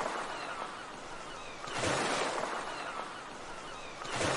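Sea waves washing in, in swells a little over two seconds apart, with birds calling faintly in short falling cries.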